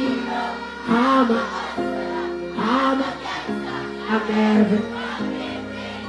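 Music with a singing voice and long held notes, played over a live-show sound system.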